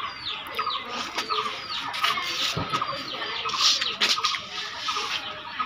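Chickens calling: many short, high peeps falling in pitch, several a second, over quick repeated clucking.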